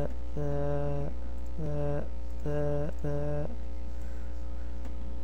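A man humming a handful of short held notes, each about half a second long, stopping about three and a half seconds in. A steady low electrical hum runs underneath.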